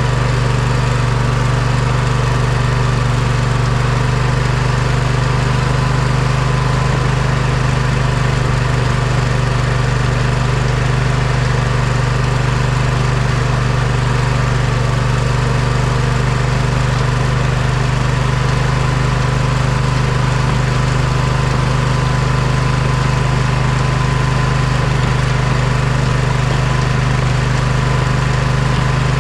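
Poulan riding lawn mower's engine running at a steady speed, a constant low drone with no change in pitch or level.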